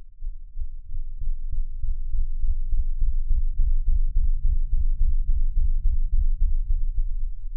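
Cartoon audio slowed down sixteen times, turned into a deep, wavering low rumble that builds over the first couple of seconds.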